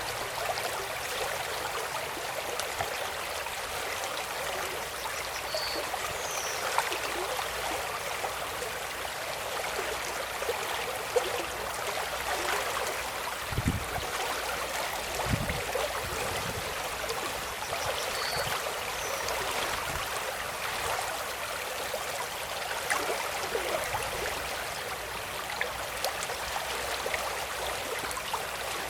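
Running water: a stream flowing and splashing with a steady rushing babble.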